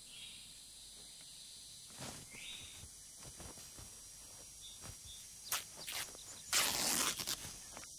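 Quiet jungle film ambience with light rustling and a few clicks. A louder ripping noise lasts under a second, about six and a half seconds in, as cloth is torn.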